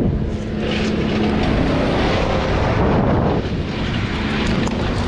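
Stihl 200T top-handle two-stroke chainsaw running steadily at high revs, as when cutting.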